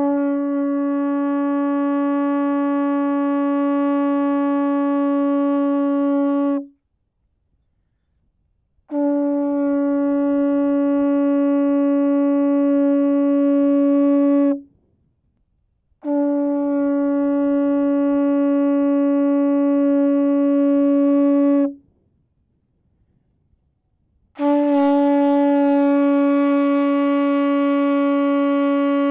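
A blown horn sounding four long, steady blasts, each about six seconds, all on the same low note, with short silences between them.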